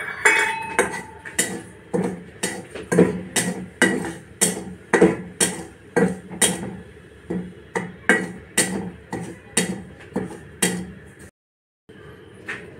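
Flat metal spatula knocking and scraping against a metal kadai as dry semolina is stirred and roasted, about two strokes a second with a short ring each time. The strokes stop about eleven seconds in, and one more knock comes near the end.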